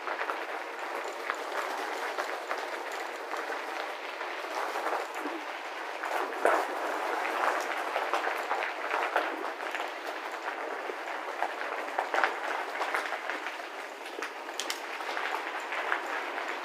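Bicycle tyres crunching over a gravel path inside a tunnel: a steady dense crackle with many small clicks and rattles, a few sharper knocks among them.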